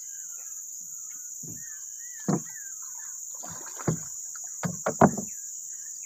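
Several knocks on a wooden boat, the loudest about five seconds in, over a steady high drone of insects and bird chirps.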